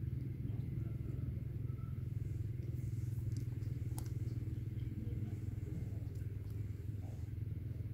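Steady low rumble of an engine running at an even pace, with a faint click about four seconds in.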